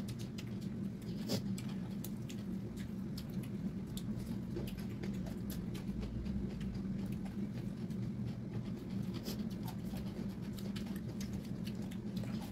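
Close-up eating sounds: wet chewing and mouth clicks as rice and pork trotters are eaten by hand, with fingers mixing rice against steel plates. Many small irregular clicks run over a steady low hum.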